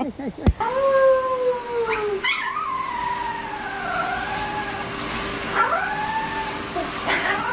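A dog howling in a series of long, wavering calls that slide down in pitch, with a faint steady tone held underneath.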